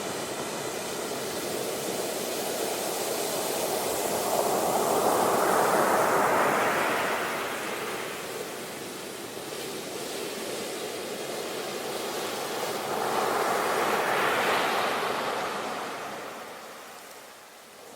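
Ocean waves breaking on a shore: two waves swell up and wash out, about eight seconds apart, over a steady surf hiss.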